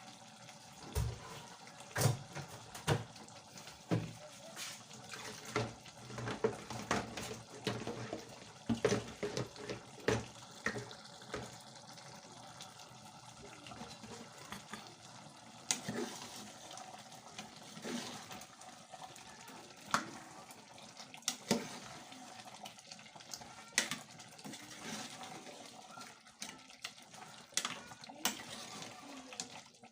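Water running at a kitchen sink, with irregular clinks and knocks of dishes or utensils throughout.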